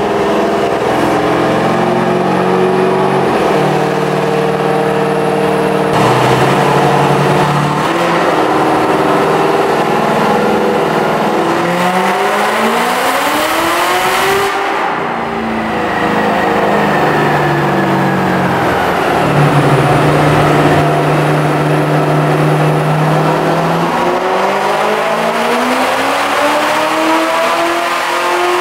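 Cadillac CTS-V's supercharged 6.2 L LSA V8, fitted with aftermarket headers, running hard on a chassis dynamometer. The engine note holds steady and steps up in pitch a few times over the first dozen seconds, climbs steeply about halfway, falls away and holds, then climbs again near the end.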